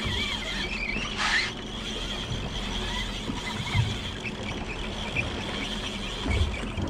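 Fishing reels being cranked under load as two rods fight fish, giving a wavering squeaky whine, over a steady hiss of wind and water on the boat with a low hum. A brief rush of noise about a second in.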